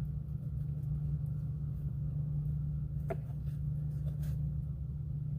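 A steady low mechanical rumble, with a couple of faint clicks about three seconds in and again just after four seconds.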